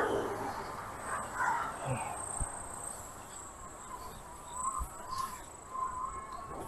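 Insects trilling in one high, steady tone that sets in about a second in, over a fainter wavering lower tone and a few soft knocks.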